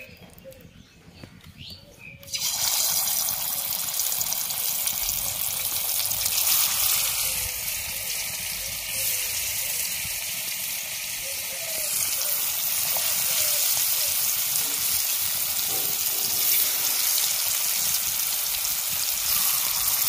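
Spice-marinated fish pieces sizzling in hot mustard oil in a karai (wok). The sizzle starts suddenly about two seconds in as the first pieces go into the oil, and grows louder as more pieces are added, around six and twelve seconds in.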